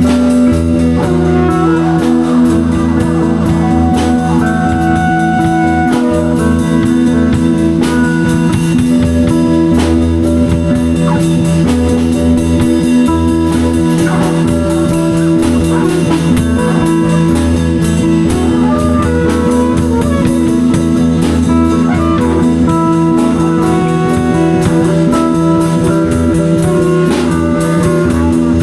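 Live improvised band jam: a guitar playing sustained notes over a drum kit, with no break in the music.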